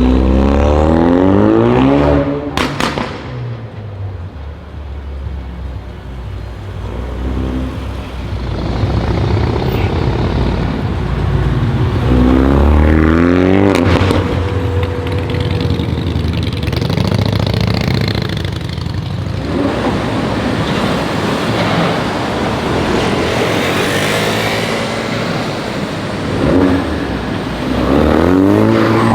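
Ford Focus RS with an aftermarket AWE exhaust accelerating hard several times, its engine note climbing in pitch through each pull. Sharp cracks from the exhaust come when it lets off, once after the first pull and again about halfway through.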